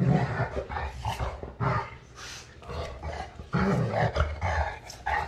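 Adult golden retriever growling in several short, deep bouts while play-wrestling a puppy. This is play growling, not aggression.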